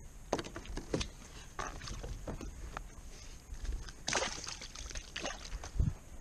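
Handling noise in a fishing kayak: scattered clicks and knocks as a crappie is worked out of a mesh landing net by gloved hands, with one louder rushing burst about four seconds in.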